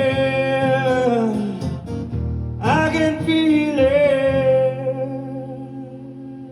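A singer holding the last long notes of a song over guitar accompaniment, with a fresh note about three seconds in, then the music fading out.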